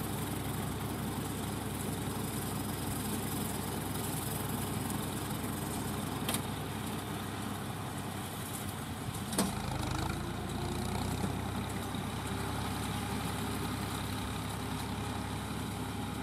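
Deutz D5006 tractor's diesel engine running steadily while powering a tractor-mounted mini round straw baler, with two sharp knocks from the machinery about six and nine seconds in. The engine note rises slightly about ten seconds in.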